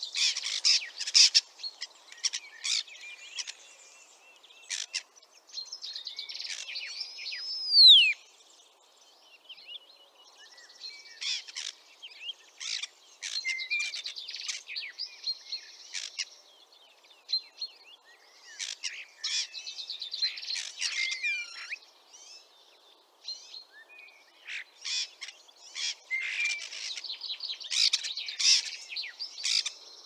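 Common starling song: a rambling run of clicks, rattles and short whistles in phrases with brief pauses, with one loud whistle sliding down about eight seconds in.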